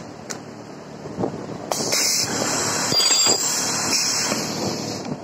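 Ultrasonic rotary-table plastic welding machine running its cycle: a few sharp clicks, then, about two seconds in, a loud high-pitched hissing noise that holds for about three seconds and cuts off near the end.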